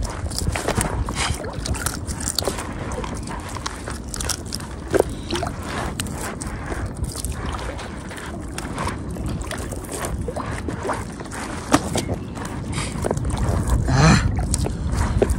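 Water sloshing and splashing, with scattered small knocks and clicks, over a low rumble of wind on the microphone that grows louder near the end.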